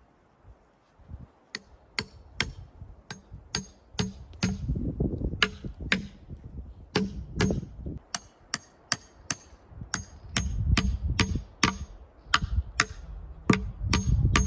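Repeated sharp hammer blows, about two to three a second with brief pauses, each with a short metallic ring, as of nails being driven into timber. A low rumble runs under many of the blows.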